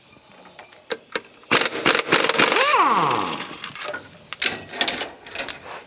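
Cordless impact wrench hammering on the reverse-threaded nut of a Kawasaki Mule's CVT driven pulley, a loud rattling burst whose motor whine falls in pitch as the trigger is released. A few sharp clicks follow near the end.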